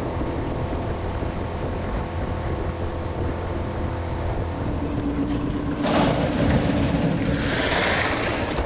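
Outboard motor on a jon boat running at speed, with water and wind rushing past the hull. About six seconds in, a louder broad rushing noise takes over.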